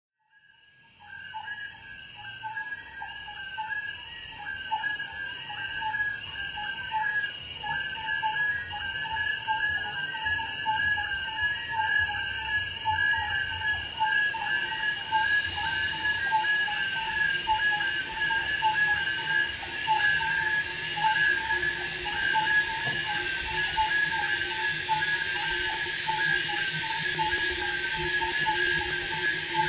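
Electronically processed recording of crickets forming a dense, high chirring texture, with lower pulsing chirps beneath. It fades in over the first few seconds.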